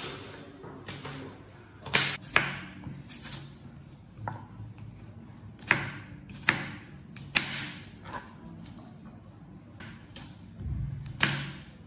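Scattered clinks, knocks and short scrapes, about seven in all and spaced a second or more apart, typical of dishes and utensils being handled in a kitchen. A faint low hum runs underneath.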